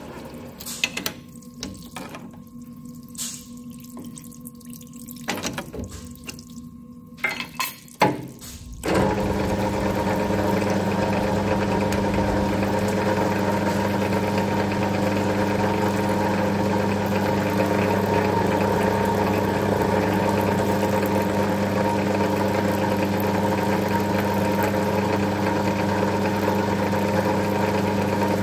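Metal lathe running steadily with a hum of many tones, starting about nine seconds in after a quieter stretch of scattered clicks and knocks.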